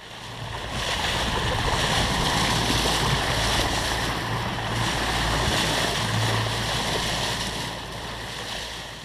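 Boat under way: a steady low engine hum under a loud rush of wind and water.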